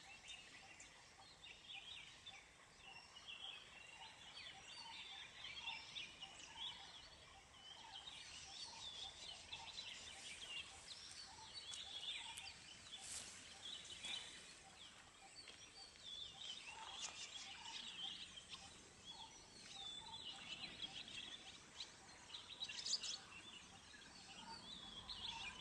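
Faint mixed birdsong: high chirps and twitters from several birds, over a low note repeated steadily at an even pace.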